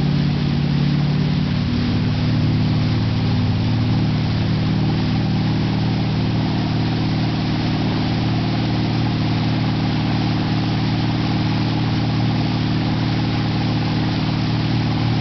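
Motorboat engine running steadily at a constant speed, with a steady rushing noise of water and wind over it.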